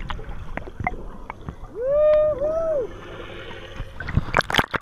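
Underwater sound heard through a camera's waterproof housing: bubbles clicking and popping, and about two seconds in a muffled voice-like call in two rising-and-falling parts, the loudest sound. Near the end, sharp splashing as the camera breaks the surface.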